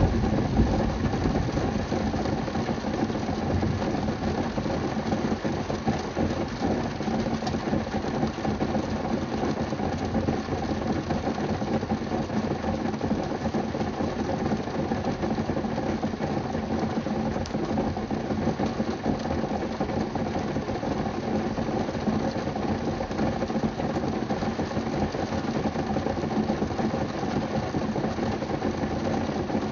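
Heavy rain drumming steadily on a car's roof and windows, heard from inside the cabin.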